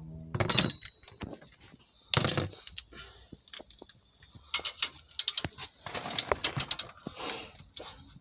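Steel hand tools clinking and clicking as the forcing screw of a three-jaw puller is tightened to press out a tie rod end. There are a few sharp clinks in the first couple of seconds, then a run of quick clicks from about the middle on.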